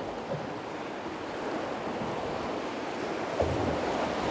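Rushing whitewater of a river rapid heard from on board a drift boat, a steady rush that grows a little louder, with a brief low thump about three and a half seconds in.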